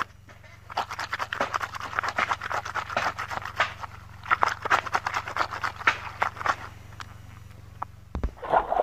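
Wet clothes being scrubbed by hand with a stiff plastic scrub brush: fast, scratchy back-and-forth strokes in two runs, with a short break between them about halfway.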